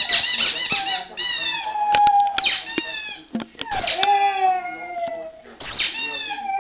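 Pug howling and whining for a toy held out of her reach: a series of high, squeaky calls, several drawn out into long tones that slowly fall in pitch.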